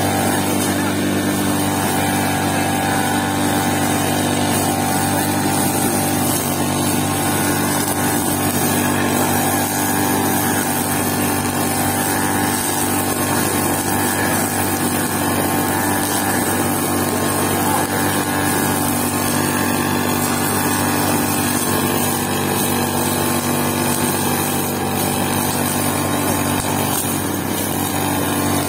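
Backpack brush cutter's small petrol engine running steadily at working speed as its trimmer head cuts grass, holding an even pitch throughout.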